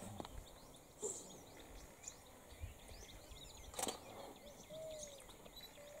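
Birds calling: many short high chirps throughout, with a low whistled note about five seconds in that comes again at the end. A few sharp clicks, the loudest about four seconds in.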